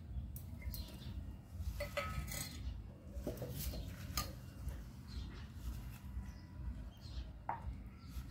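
Stainless-steel plate and mixer-grinder jar clinking and scraping in short, scattered knocks as coriander and mint leaves are tipped and pressed into the jar by hand, with the leaves rustling. A steady low hum runs underneath.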